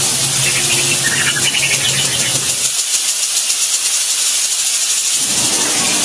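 Loud, steady hiss with a few faint short chirps in the first half. A low hum underneath stops about three seconds in and comes back near the end.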